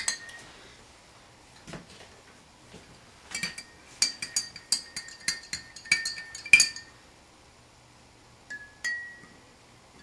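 A spoon stirring salt into a tall drinking glass of water, clinking against the glass so that it rings. There is a quick run of clinks a few seconds in, then two single clinks near the end.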